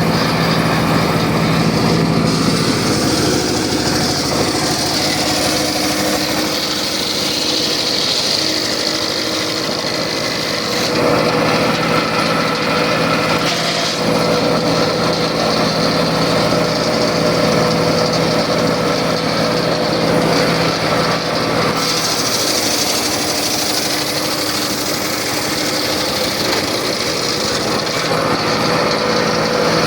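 Circular saw running loudly and without a break, its pitch shifting a few times.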